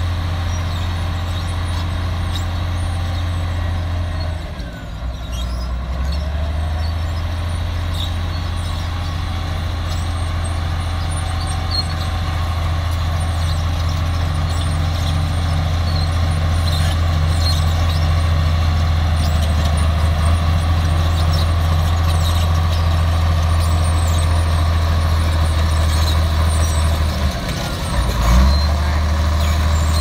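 Komatsu D53A crawler bulldozer's diesel engine running steadily under load as the dozer pushes earth with its blade. The engine note dips and shifts briefly about four seconds in and again near the end, with a short louder surge.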